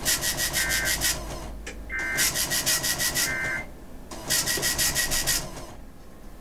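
Three screeching EAS digital data bursts (SAME header), each about one to one and a half seconds long with short gaps between them. This is the coded header that opens an Emergency Alert System message.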